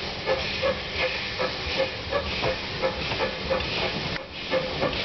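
Small steam tank locomotive working slowly past at close range: regular exhaust beats about three a second over a steady hiss of steam.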